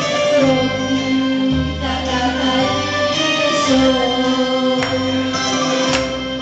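Live music from a Roland keyboard: a steady bass line changing note about once a second under long held melody notes, with a voice singing into a microphone over it.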